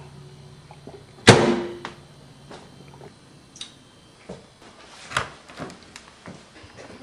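A single loud bang about a second in, with a brief ringing after it, followed by several lighter knocks and clicks. A low hum fades out partway through.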